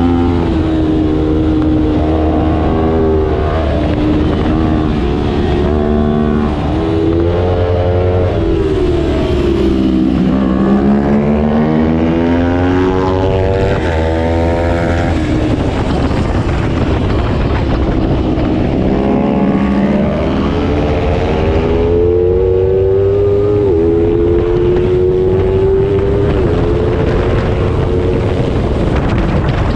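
A small-displacement race motorcycle engine at racing speed, its pitch dropping in steps as it downshifts, then climbing and falling again through gear changes, over a rushing noise.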